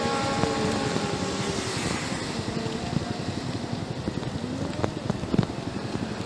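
Steady road and wind noise from riding a mountain bike along a street, with wind on the microphone. A motor vehicle's engine hums past near the start, and two sharp knocks come about five seconds in.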